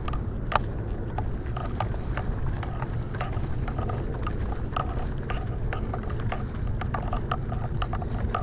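Wind rumbling steadily on the microphone, with irregular light clicks from the spinning reel and rod being worked while a false albacore is fought on the line.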